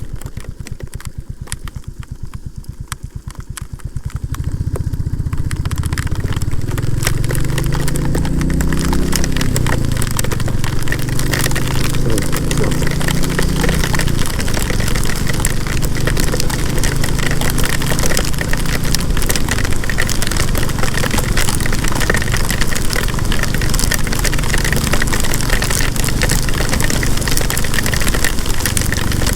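Royal Enfield Classic 350 single-cylinder engine ticking over with slow, even beats for about four seconds, then pulling away with the pitch rising through the gears, and settling into steady running. Heavy rain patters over the engine sound and wind rushes past.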